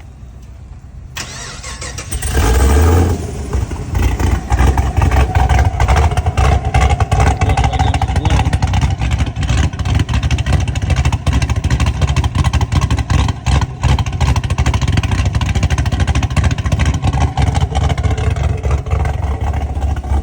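The 2015 Chevrolet SS's 6.2-litre V8 is remote-started: it cranks about a second in and catches with a loud flare of revs. It then settles into a steady idle with a deep rumble.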